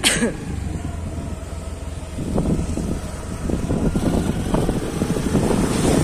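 Motor scooter riding along a road: its engine hums steadily under wind buffeting the phone's microphone, and the buffeting grows stronger from about two seconds in. A short sharp click comes at the very start.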